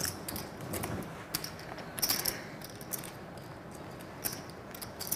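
Poker chips clicking against one another as a player fingers and shuffles a stack, in irregular clusters of light clicks.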